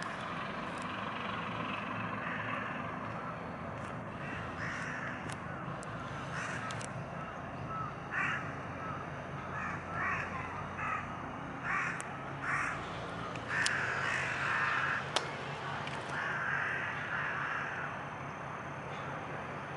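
Crows cawing in repeated short calls, bunched in the second half, over a steady low background rumble.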